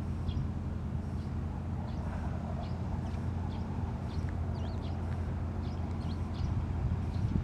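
Small birds chirping repeatedly in short, high notes over a steady low outdoor rumble.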